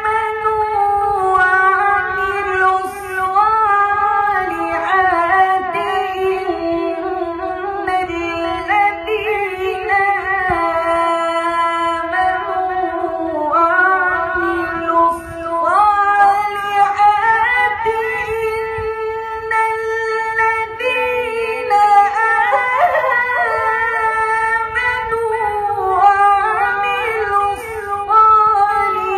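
A man reciting the Quran in melodic tajweed style, high-pitched, drawing out long held notes with ornamented turns and glides between them.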